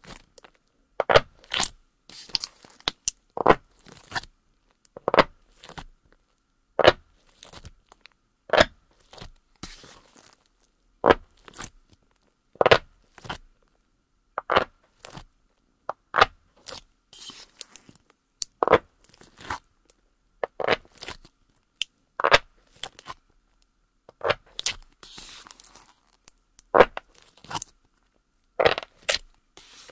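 A pink plastic card pressed into and worked through a large mass of fluffy white slime, giving sharp crunchy pops and crackles about every one to two seconds.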